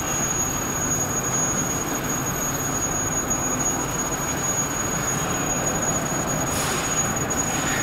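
Steady mechanical noise of meat-processing production machinery, such as conveyors and a packing line, running continuously, with a thin, steady high whine above it.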